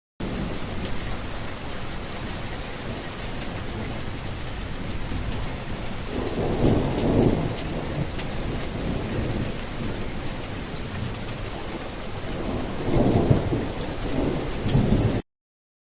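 Steady heavy rain, with two low rolls of thunder swelling up, about six seconds in and again near the end.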